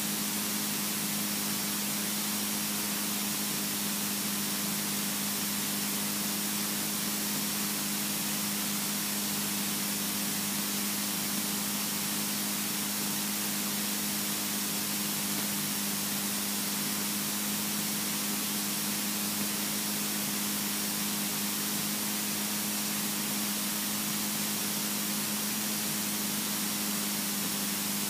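Steady drone of a Robin DR400's piston engine and propeller mixed with airflow hiss, heard inside the cockpit of the light aircraft on final approach to land. It holds one even hum and hiss with no change in pitch or level.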